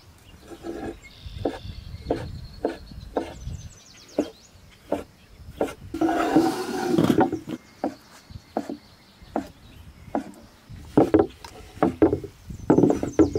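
Cleaver chopping sausages into rounds on a wooden board: a series of sharp knocks of the blade against the wood, about one a second and coming faster near the end. There is one longer, noisier sound of about a second around six seconds in.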